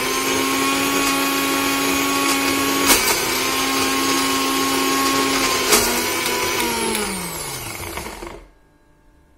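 Electric mixer grinder's motor running at full speed with a steel jar, grinding peeled ginger with a spoonful of water into paste. There is a sharp knock about three seconds in and another near six seconds; the motor is then switched off and winds down, falling in pitch until it stops near the end.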